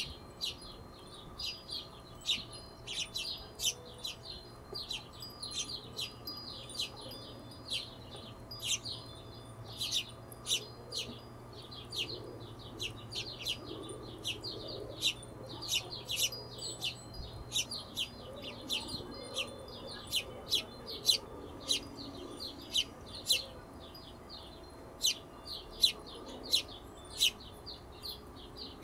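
Hummingbirds chipping: a steady run of short, sharp, high-pitched chirps, about two to three a second at irregular intervals.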